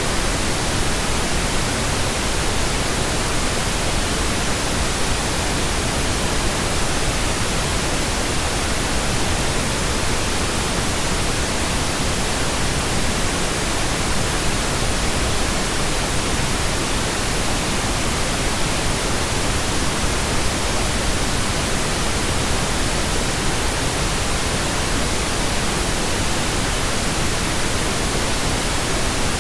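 Steady pink noise generated in Audacity: an even, unchanging hiss spread across all pitches.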